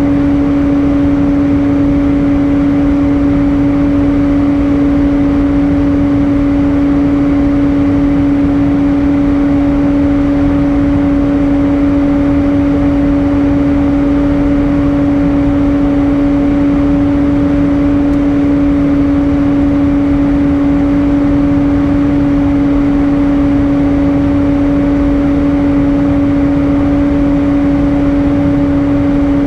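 Airbus A320 cabin noise in flight: a steady rush of air and engine noise with a constant hum underneath, unchanging throughout.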